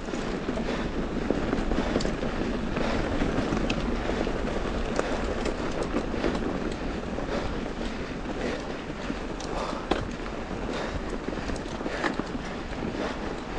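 Mountain bike rolling over a loose dirt trail: a steady crunch of tyres on dirt and gravel, with many irregular clicks and rattles from stones and the bike's frame and drivetrain, and wind on the microphone.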